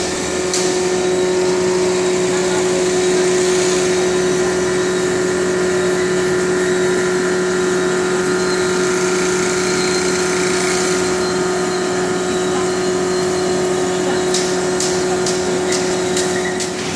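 Compost-processing machinery running with a steady, unchanging motor hum. A few sharp clicks come near the end.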